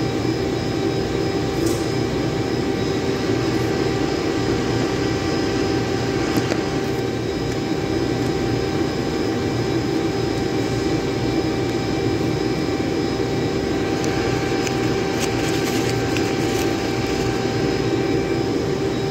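Steady mechanical drone of background machinery, a fixed humming tone over a low rumble, with a few faint clicks of small parts being handled, mostly in the last few seconds.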